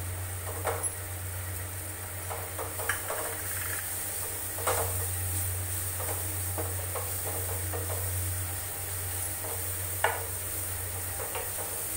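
Spiced onion-tomato masala sizzling in a steel frying pan while a wooden spoon stirs and mashes it, with a few sharper knocks of the spoon against the pan. A steady low hum runs underneath.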